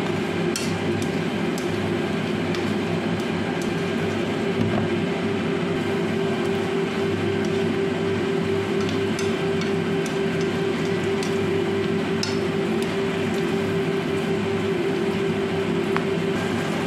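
Steady hum of a kitchen fan, with a few light clicks of wooden chopsticks against a nonstick frying pan as green beans are stir-fried.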